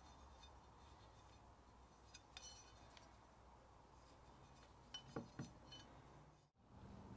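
Near silence, with a few faint metallic clinks and light knocks as a loose steel cleaver blade is handled and turned in the hand. There is one small cluster about two and a half seconds in and another about five seconds in.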